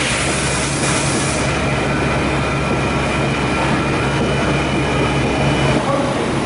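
Okuma MACTURN 30 CNC turning centre running: a steady mechanical hum with a thin whine over it. A high hiss fades out in the first second or so, and the low hum drops away near the end.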